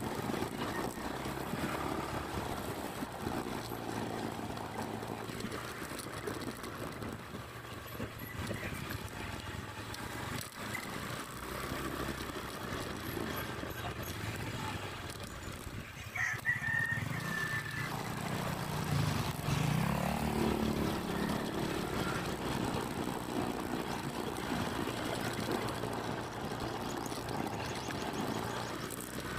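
Steady engine and road noise of a small vehicle riding along a narrow concrete road, with a rooster crowing once partway through.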